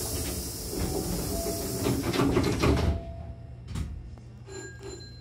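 Hankyu train's air-operated sliding passenger doors closing: a loud hiss of air, then the two door leaves rumble shut, ending abruptly about three seconds in.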